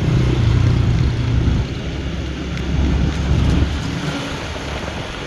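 Road traffic: a motor vehicle's engine drone passing on the highway, loudest in the first second and a half and again from about two to three and a half seconds in, then easing off.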